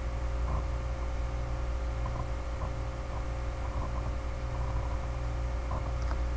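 Steady low electrical hum with background hiss, and a few faint small clicks scattered through it.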